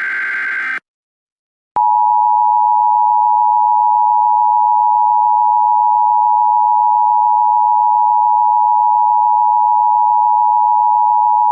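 Emergency Alert System tones. A short burst of the EAS digital header comes first, a harsh data buzz. After about a second of silence the two-tone EAS attention signal starts, a loud steady dual tone near 853 and 960 Hz, held for about ten seconds.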